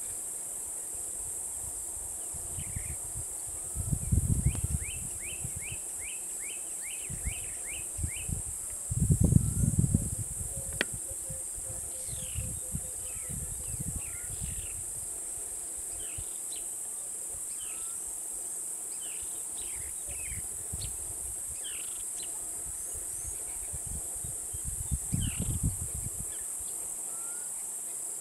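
Steady high-pitched insect drone with birds chirping over it, including a quick run of chirps a few seconds in. Three brief low rumbles break in, about four seconds in, around nine to ten seconds, and near the end.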